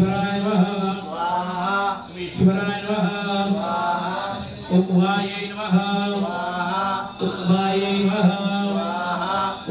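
Hindu priest chanting Sanskrit mantras on a near-monotone, breaking off briefly every two to three seconds.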